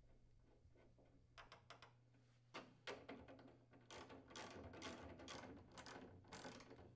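Faint metallic clicking and scraping as a new steel hinge pin is threaded into a refrigerator's bottom hinge bracket and turned with a hand driver. Halfway through, the clicks come in a quick run, about two or three a second.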